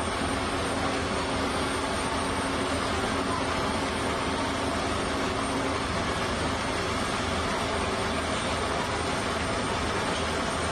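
Steady noise of heavy construction machinery running, with an engine's low hum that fades out about halfway through.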